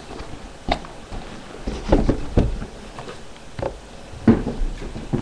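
A cardboard shipping box being handled and unpacked close to the microphone: a series of irregular knocks and bumps, about six in a few seconds.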